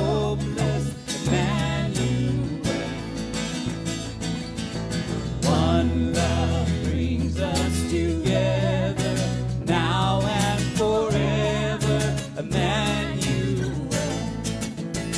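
Live worship song played on acoustic guitars and electric bass, with a woman singing the melody.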